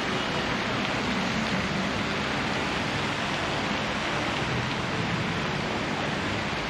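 Steady, even rushing outdoor ambient noise with no distinct events.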